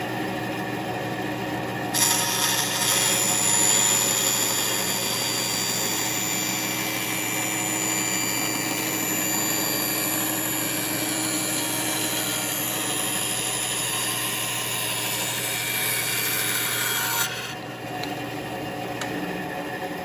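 Bandsaw blade cutting a curve through a wood board, over the steady hum of the dust collector and saw running. The cutting noise starts about two seconds in and stops about three seconds before the end, leaving the machines running.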